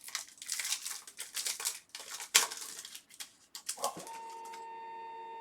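Rustling and crinkling of trading-card pack wrappers and cards being handled and opened, in quick irregular crackles. About four seconds in the crackling stops and a steady hum of several held tones begins.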